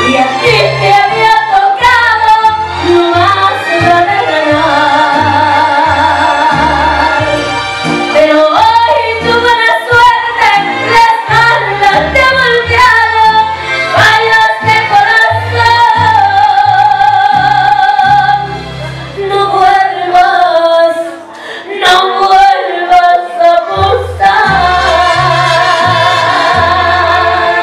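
A woman singing a ranchera through a microphone and PA, with vibrato on long held notes, over an amplified accompaniment with a steady bass line. The music drops briefly about two-thirds of the way in, then carries on.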